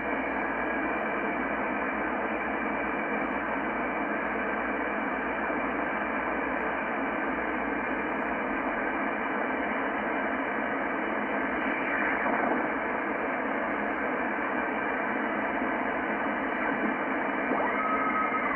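Yaesu FTdx10 shortwave transceiver in upper sideband being tuned across the 19 m band: a steady hiss of band noise and static, cut off above and below by the narrow sideband filter. A faint steady tone comes in near the end, as the dial nears a utility signal.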